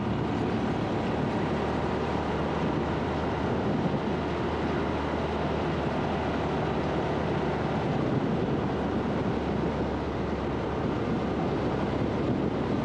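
Honda Super Cub's single-cylinder four-stroke engine running steadily at cruising speed, heard from on the bike, mixed with a steady rush of wind on the microphone.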